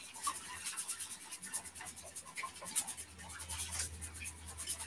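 Uncooked long grain white rice being shaken in a strainer under the tap while it is rinsed, the grains rattling and scratching in quick, even strokes.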